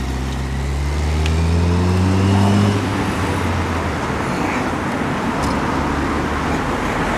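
A road vehicle passing close by: its engine note rises steadily as it accelerates over the first three seconds, then gives way to steady road and tyre noise.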